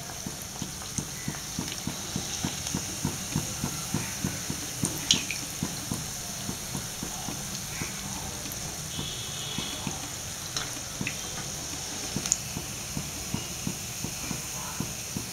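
Makanbeda dumplings deep-frying in hot oil: a steady sizzle full of small crackles and pops.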